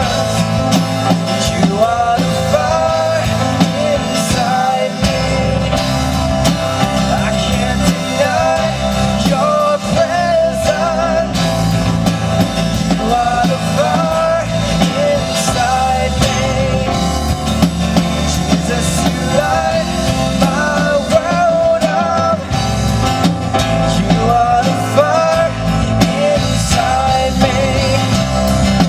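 Rock music with a drum kit and a wavering lead melody line, continuous and loud.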